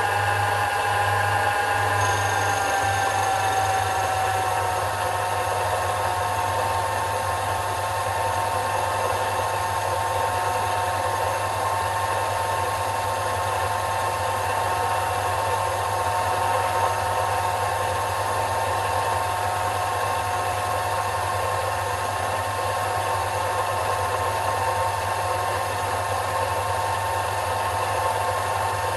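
Sherline micro lathe running steadily while turning a bronze bush: the motor and spindle give a steady whine over a low hum. The whine settles slightly lower in pitch over the first few seconds.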